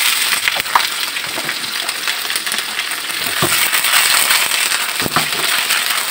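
Eggplant, tofu and tempeh pieces sizzling and crackling in hot oil in a frying pan as they are tossed with a wooden spatula, with a few knocks of the spatula against the pan.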